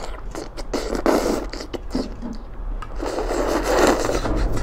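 Instant noodles being slurped in long, hissy draws, one about a second in and a longer one near the end, with a few short clicks of forks against plates.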